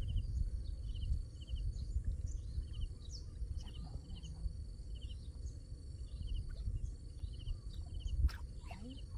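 Lakeside outdoor ambience: a steady low rumble with a small creature's short trilled chirp repeating every second or so, and faint bird chirps above it. A single sharp click comes near the end.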